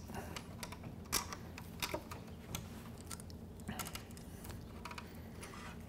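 Hands working a cord around a screw in a bone moose skull: a few faint scattered clicks and rubs, the sharpest a little over a second in, over a low steady hum.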